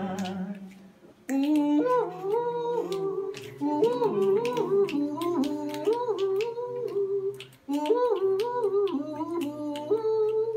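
A man humming a melody without accompaniment, wordless, in stepped and gliding notes. The humming begins about a second in and breaks off briefly once more past the middle.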